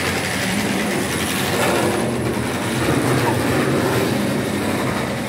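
Model railway train running along the track: a steady rattle of small wheels on the rails with the hum of its motor.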